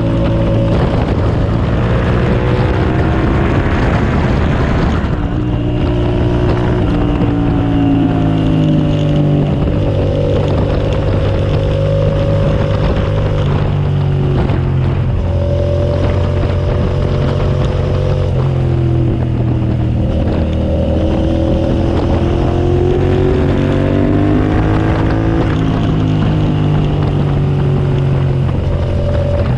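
Onboard sound of a 2007 Suzuki SV650S's 90-degree V-twin engine at speed on track. The engine revs climb and drop back several times as it is shifted through the gears, with wind rushing over the microphone.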